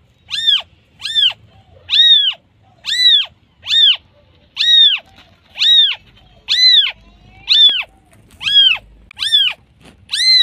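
Newborn kitten crying for its mother: a steady series of high-pitched meows, about one a second, each rising and then falling in pitch.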